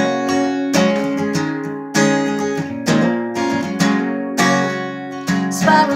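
Acoustic guitar strummed in a chord pattern, a fresh stroke every half second to a second.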